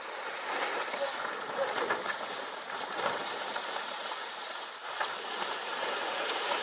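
Insects, crickets or similar, droning in one steady high tone over a rough, even hiss with scattered faint clicks.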